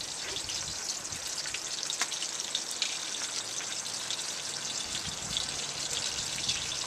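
Italian sausages frying in hot oil in a cast iron skillet: a steady sizzle dotted with small crackles and pops.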